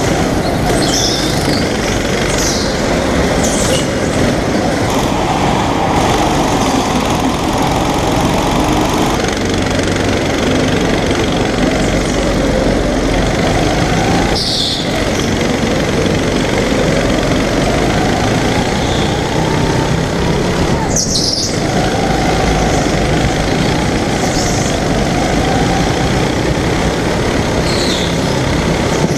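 Indoor rental go-kart engine heard from the onboard camera, its pitch rising and falling through the corners. Short high tyre squeals come several times.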